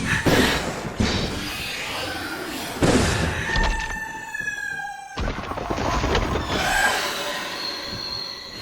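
Layered film sound effects: heavy impacts and clanks, with a high, slightly falling screech about halfway through that cuts off suddenly.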